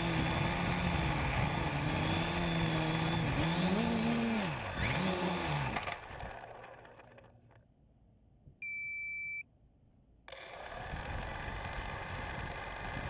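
Quadcopter's electric motors and propellers buzzing steadily, the pitch swinging up and down as the throttle changes, then winding down and stopping as it comes down into the grass. A single short electronic beep follows in the quiet, and a steady hiss comes back near the end.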